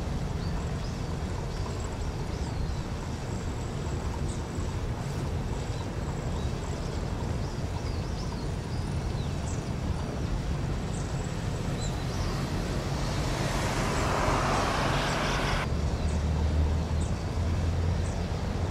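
Outdoor ambience: a steady low rumble with small birds chirping now and then. A hiss swells over a few seconds about two-thirds of the way through and cuts off suddenly.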